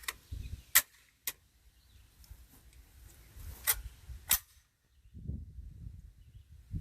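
Sharp metallic clicks and clacks from a semi-auto Sterling L2A3 carbine being worked by hand in a function check, five in all over the first four and a half seconds. A low rumble follows near the end.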